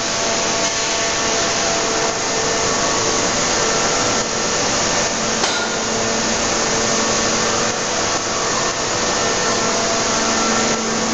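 Machinery of an aluminium wheel forging hydraulic press line running: a steady hiss over a constant hum.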